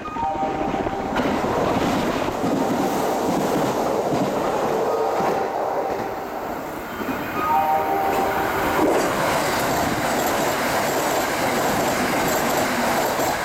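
Kintetsu Urban Liner limited express train running through the station at speed, a steady loud rush of the train and its wheels on the rails.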